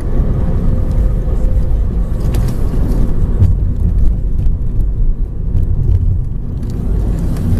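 Ford Focus 1.6-litre four-cylinder engine under hard acceleration, heard from inside the cabin, with road and tyre noise. The engine note changes about three and a half seconds in, as the driver changes gear.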